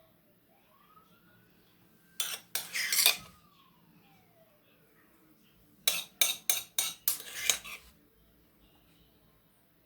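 Spoon clinking and scraping against a dish as sauce is spooned onto the gratin. The clinks come in two quick clusters, one about two seconds in and a longer run about six seconds in.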